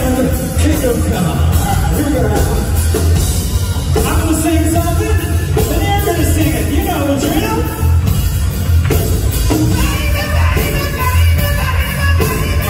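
Hard rock band playing live through a loud stage PA: drums and crashing cymbals, electric bass and guitar under a sung lead vocal.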